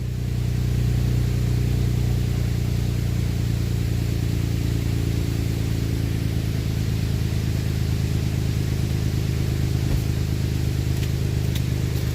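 A motor running steadily at an even pitch, growing slightly louder in the first second, with a few faint clicks near the end.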